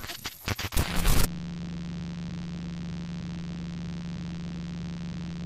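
Analogue-video glitch sound: bursts of crackling static for about the first second, then a steady electrical hum with a hiss over it, the sound of a VHS tape or old TV showing its blue screen.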